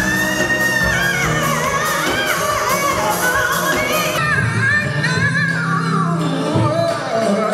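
Live vocal performance over band accompaniment: a woman sings and holds a long high note into a handheld microphone, and a man's voice takes over toward the end.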